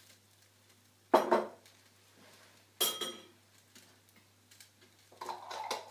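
A tablespoon knocking against a frying pan, knocking off the curry paste: two sharp knocks about a second and a half apart, the second ringing briefly, then a few lighter clinks near the end.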